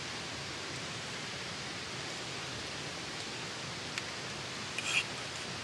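Steady, even outdoor background hiss, with a light click about four seconds in and a short clink near the end, from a spoon against a metal bowl.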